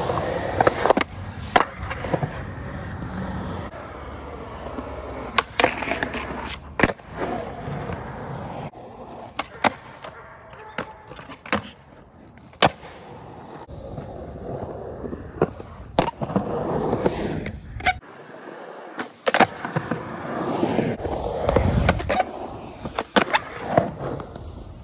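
Skateboard wheels rolling on concrete, with many sharp clacks from the board popping and landing on concrete ramps and ledges. The rolling noise changes abruptly several times as the clips change.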